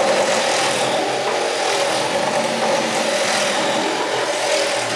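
Two cordless one-handed reciprocating saws, a Milwaukee M18 Hackzall and a Kobalt 24-volt brushless, running together at full speed, their blades sawing through stacked white pipe. It is a steady, loud buzz with a motor whine.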